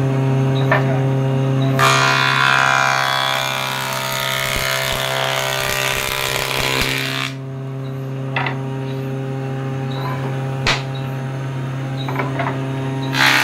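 Electric jointer-planer running with a steady hum. About two seconds in, a board is fed across the spinning cutterhead, and the loud planing noise lasts roughly five seconds. The machine then idles with a few sharp knocks, and the next pass starts near the end.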